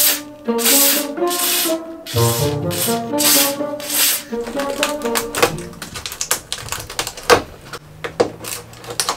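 Repeated short hissing bursts from a WD-40 aerosol can sprayed through its straw, each about half a second long, over background music. In the second half there are scattered sharp clicks.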